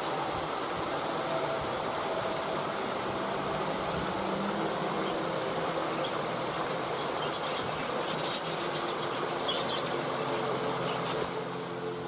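Waterfall water rushing steadily, with soft held music tones underneath and a few brief high chirps about two-thirds of the way through.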